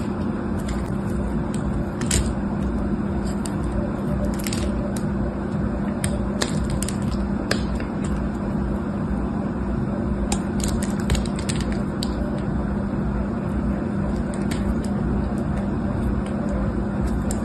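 Utility knife blade shaving thin slices off a bar of soap: scattered short crackles and scrapes as the blade cuts through. A steady low hum runs underneath.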